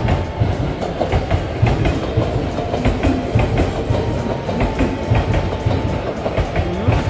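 Pet stroller's wheels rolling over pavement: a steady rumble with irregular rattling clicks.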